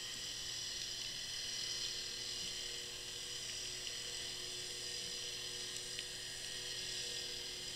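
Steady high-pitched electronic whine over a low hum from an underwater camera rig, with a few faint clicks.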